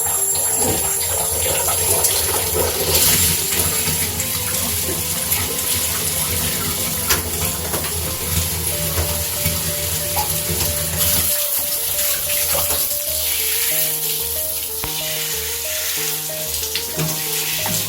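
Shower water spraying and splashing steadily during a kitten's bath.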